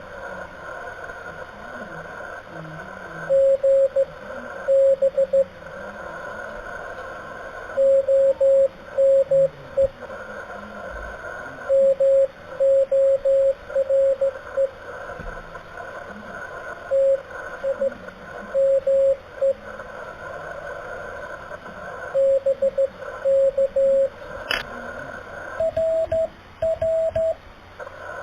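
Slow Morse code (CW) from an amateur radio transceiver: a single steady tone keyed in groups of dots and dashes every few seconds, with receiver hiss and static between the groups.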